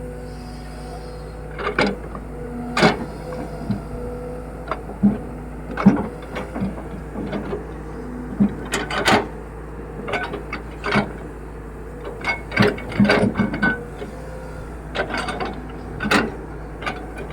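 Kobelco excavator's diesel engine running steadily, with irregular sharp metallic knocks and clanks from the working machine every second or so.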